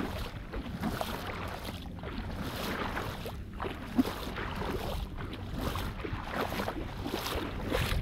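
Wind buffeting the microphone over shallow seawater washing at the shoreline, with one short knock about halfway through.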